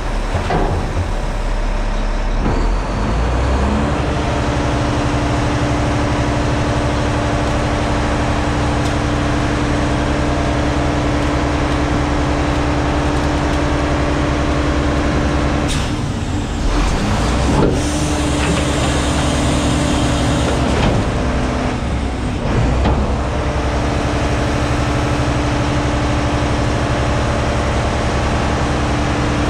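Front-load garbage truck's engine and hydraulics running, settling to a steady pitched drone about four seconds in, while the lift arms hold a dumpster tipped over the hopper. A few knocks and clunks come near the middle and again about two-thirds of the way through.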